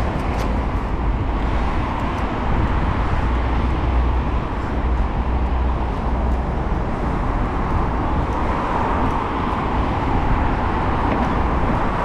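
Wind buffeting the camera microphone: a steady, heavy low rumble with a noisy hiss over it.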